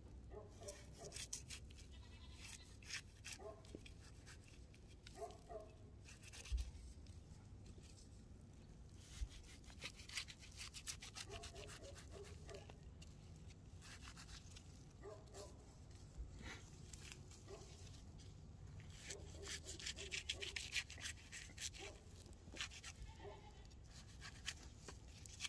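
Knife slicing and scraping meat along elk rib bones: a run of faint, irregular scrapes and clicks.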